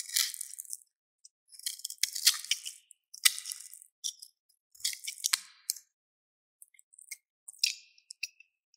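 Utility-knife blade cutting into a bar of soap: short, crisp crunching and scraping strokes, about six of them with pauses between, sparser near the end.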